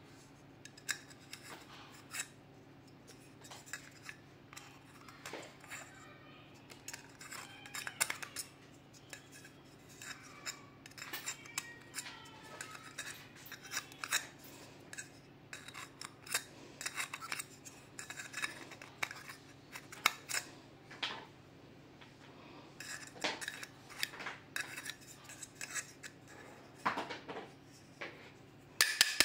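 Small metal hand tools clicking and scraping against vacuum-cleaner parts, a string of irregular light clicks.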